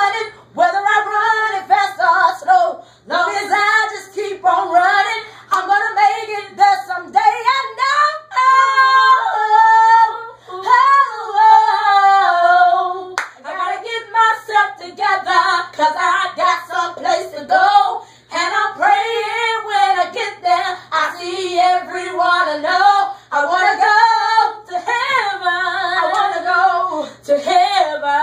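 A woman singing solo without accompaniment in a high voice, with long held notes that waver with vibrato and quick melodic runs between them.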